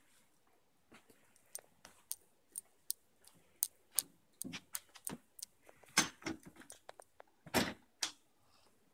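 A beagle's claws clicking and scrabbling on a tile floor and against a door as it rears up and paws at it, a string of irregular sharp taps with a few louder knocks about six seconds in and near the end.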